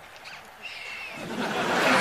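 Studio audience laughter, which starts about a second in and swells steadily louder.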